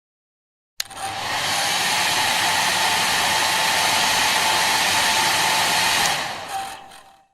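Hair dryer switched on with a click, then blowing steadily: a loud rush of air with a thin motor whine running through it. After about five seconds it is switched off and winds down to silence.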